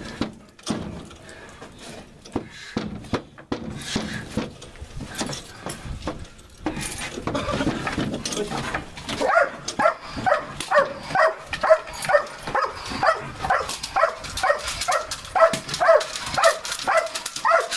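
German shepherd police dog barking repeatedly at a bite-training helper, about two barks a second, starting about halfway through. Before the barking there are scattered knocks and scuffling while the dog grips the bite sleeve.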